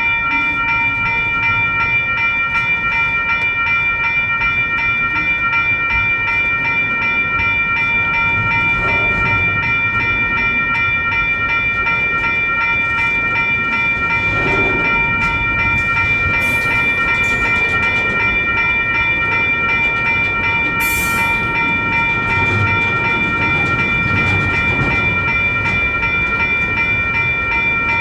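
Crossing signals' WCH electronic bells ringing steadily over the low rumble and clatter of a freight train rolling through the crossing. Two short high hisses come a little past halfway.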